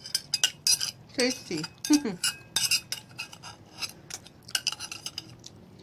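Cutlery clinking and scraping against a dish in many quick, irregular clicks while a rice meal is eaten.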